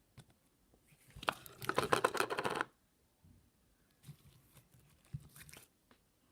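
Glitter slime being squeezed and kneaded by hand, giving a quick run of crackling, popping clicks about a second in, then a few scattered smaller pops toward the end.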